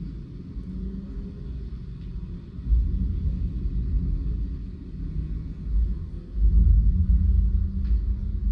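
A low, uneven rumble that swells about a third of the way in and is loudest near the end.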